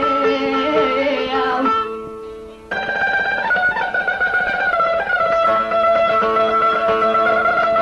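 Instrumental music led by a plucked string instrument. The music dips away about two seconds in and comes back strongly about a second later.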